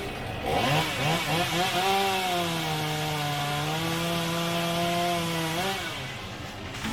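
Chainsaw revved in a few quick blips, then held at full throttle for about four seconds with the pitch sagging slightly as it cuts into wood, and let off near the end.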